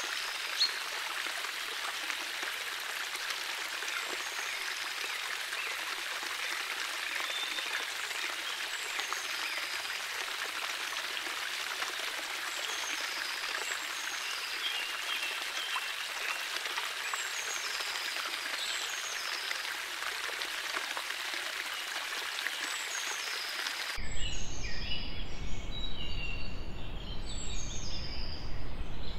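Small birds chirping in short, repeated, falling calls over a steady hiss of water from a shallow water feature. About 24 s in, the sound switches abruptly to a louder, rougher noise with a low rumble, and the birds keep chirping.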